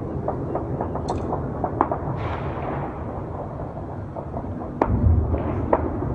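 Distant gunshots: a rapid scatter of faint pops in the first couple of seconds, then a sharp louder crack nearly five seconds in and another shortly after, over a steady low rumble.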